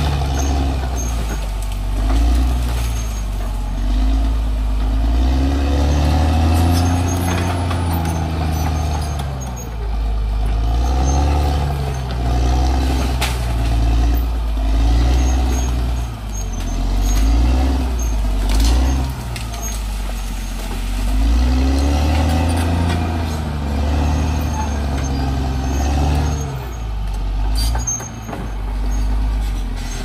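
CAT D6R XL bulldozer's diesel engine working under load, its pitch rising and falling every few seconds as the dozer pushes through brush. A few sharp knocks stand out over the engine.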